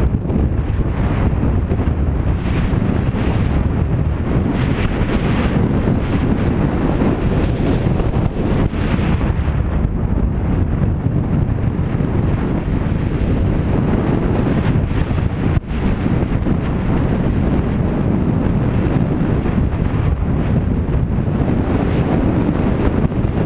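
Loud, steady wind buffeting the microphone of a skier's camera at speed on a fast downhill run, with the hiss of skis on snow mixed in.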